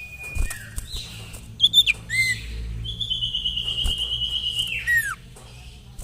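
Common iora (sirtu) calling. A high whistle ends early on, then come a couple of short swooping notes and a long, rapidly trilled whistle held level for about two seconds that drops steeply in pitch at the end. A low hum runs underneath.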